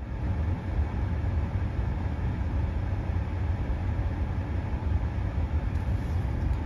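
Steady low rumble inside a stationary car's cabin, with no distinct events.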